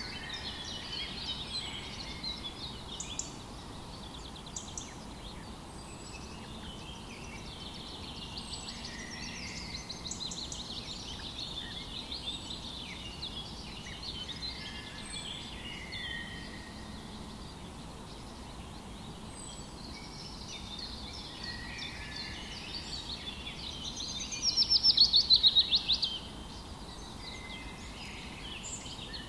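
Small winter finches, pine siskins and common redpolls, twittering with many short high calls and trills, and one louder rising trilled call lasting a second or two near the end.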